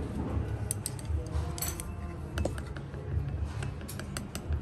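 Wooden chopsticks clinking lightly against crushed ice and a small ceramic soy sauce dish: a scattered series of sharp little clicks, a few close together near the end. Under them runs a steady low rumble.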